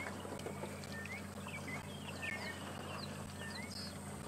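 Wild birds calling: a chorus of short whistled chirps repeating every second or so, some notes falling and some rising, over a steady low hum.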